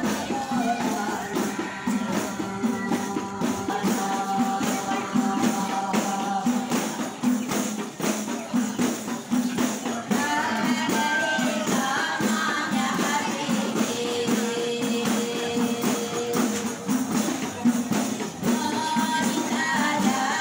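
A rebana group playing: frame drums with jingles beating a fast, steady rhythm under a sung melody.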